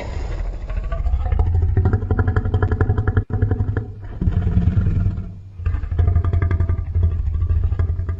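Deep, throbbing monster growl, a lowered-pitch kaiju sound effect, in two long rattling stretches with a short lull about five seconds in.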